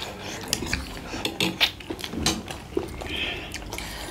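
Forks and spoons clinking irregularly against metal plates as several people eat noodles and dumplings.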